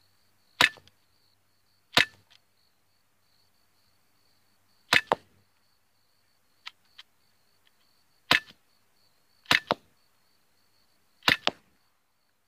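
Sig Sauer P320 CO2 air pistol firing .177 pellets in a rapid string: about nine sharp cracks at uneven intervals, several in quick pairs, with two faint clicks a little past the middle. The pistol is misfeeding a little.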